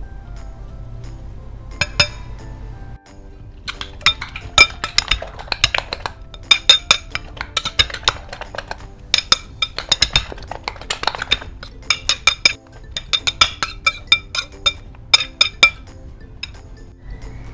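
A metal spoon clinking rapidly and irregularly against a glass bowl as eggs and chopped vegetables are beaten. It starts about four seconds in, with a couple of brief pauses, over soft background music.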